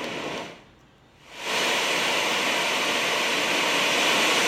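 LectroFan Micro sound machine playing white noise through its small speaker; the hiss cuts out for about a second, then comes back louder and brighter as it switches to another white noise setting turned up in volume.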